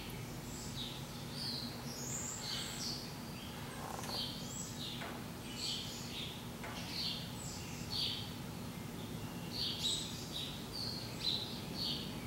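Birds chirping: short high notes, about two a second, over a faint steady hum.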